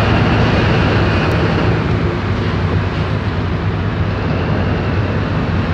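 A tugboat's diesel engine running steadily with a deep, even hum, heard on board while towing on a line, over a haze of wind and water noise.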